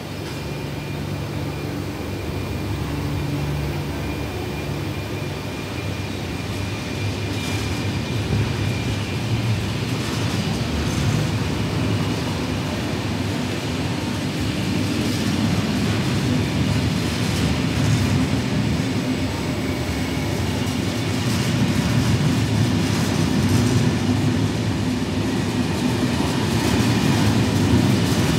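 Intercités Corail passenger coaches rolling past as the train pulls out, wheels running on the rails with occasional knocks. The sound grows steadily louder as the train picks up speed.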